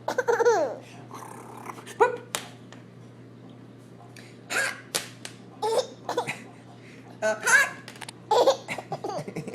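Baby giggling in short, separate bursts, broken up by hiccups.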